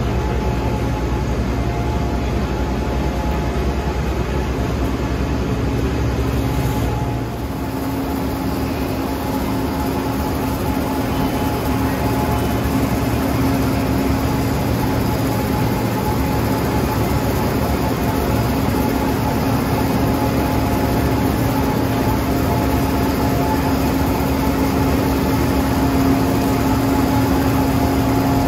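Asphalt milling machine (cold planer) running with a loud, steady machine drone. About seven seconds in, the deep rumble drops away and a steady hum-like tone takes over and holds.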